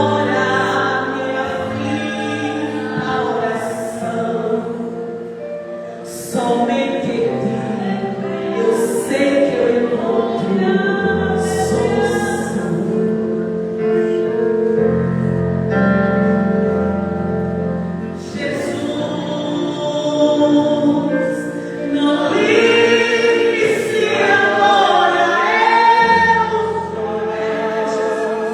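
Choir singing gospel music with instrumental accompaniment, mixed voices holding long sung notes.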